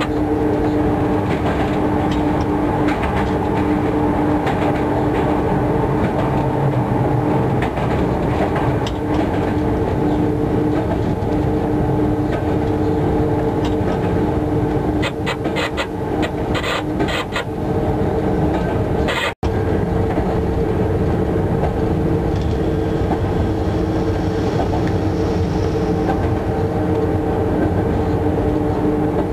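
Train running, heard from inside the locomotive cab: a steady rumble of wheels on track under a constant two-note hum from the locomotive. A quick run of clicks comes about halfway through, and the sound cuts out for an instant about two-thirds of the way in.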